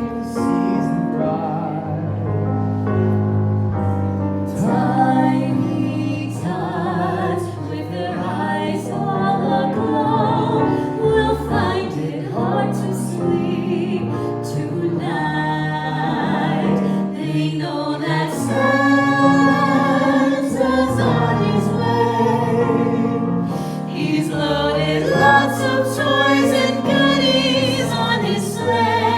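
Several voices singing together in harmony with musical accompaniment, like a small choir in a live Christmas performance.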